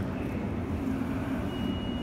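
Indoor shopping-mall ambience in a large atrium: a steady low rumble of background noise. A thin, steady high tone starts about one and a half seconds in.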